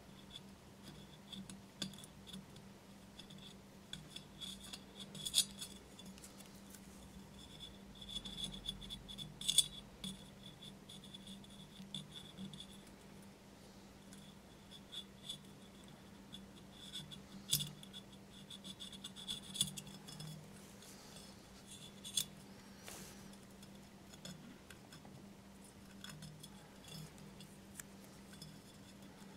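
Small steel razor scraper scraping not-yet-cured Hxtal clear epoxy residue off the glazed porcelain inside a vase rim: scattered short scratches and sharp ticks of metal on porcelain.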